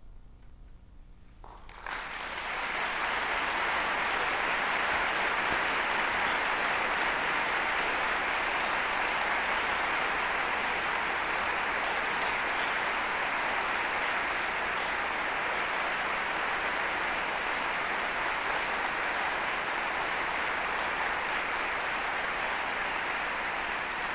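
An audience applauding in a large concert hall. It starts about two seconds in, as the choir's last chord fades into a brief hush, and then keeps up steadily.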